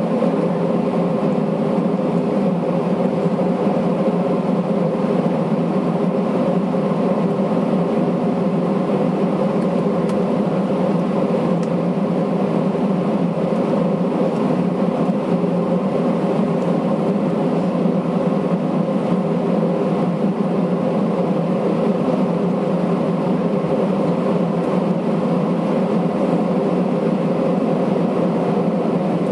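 Airbus A320 cabin noise while taxiing: the engines' steady hum at taxi thrust, heard from inside the cabin, with several steady low tones in it.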